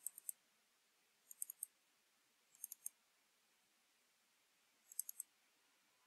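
Computer mouse clicking faintly: four short groups of two or three quick, high-pitched clicks, a second or more apart.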